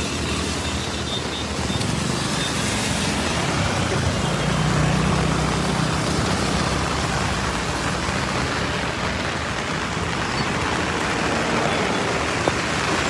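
Steady rush of heavy rain and road traffic beside a flooded city road, with a low vehicle hum a few seconds in.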